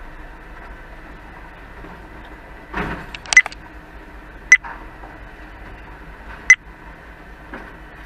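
FAUN Rotopress rear-loading garbage truck running steadily at a standstill, with a short scraping rush about three seconds in, then four sharp, ringing metallic clanks, the last three evenly spaced about two seconds apart.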